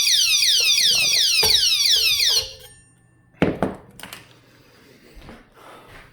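Motion-triggered anti-theft alarm on an electric scooter, set off by being touched: a rapid series of loud falling electronic chirps, about three a second, that stops abruptly about two and a half seconds in. A single knock follows about a second later, then light handling sounds.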